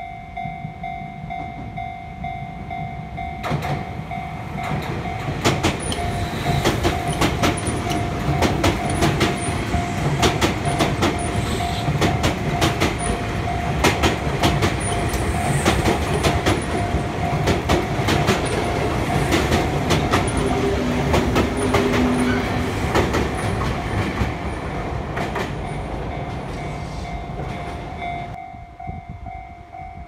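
Level crossing warning bell ringing steadily while an electric commuter train passes close by. The train comes in about three seconds in and goes past with rapid clacking of wheels over rail joints, then drops away suddenly near the end, leaving the bell.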